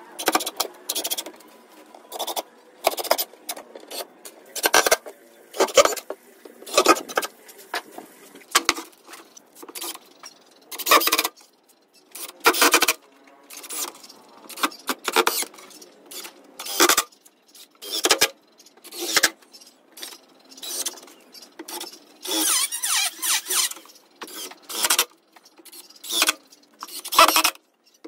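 Cordless drill-driver driving screws into 18 mm plywood in many short bursts, each under a second, with one longer run near the end.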